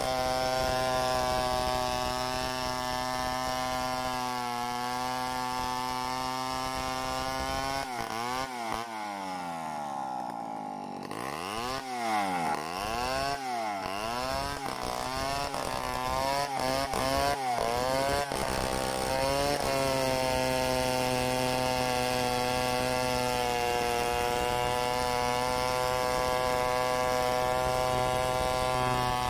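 Two-stroke chainsaw ripping lengthwise through a mahogany log, running steadily at high revs under load. After about eight seconds the engine speed swoops down and back up several times for about ten seconds, then it settles back into a steady cut.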